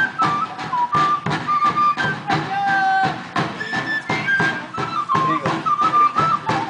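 Andean folk music played live: a flute carries a melody in held, stepping notes over a steady beat on a drum struck with a stick.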